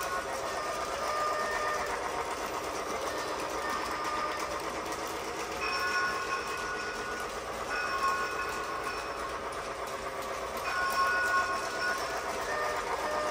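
Battery-powered Lionel toy train running on its track, its small motor and wheels making a steady whirring clatter. Short pitched tones sound now and then, every few seconds.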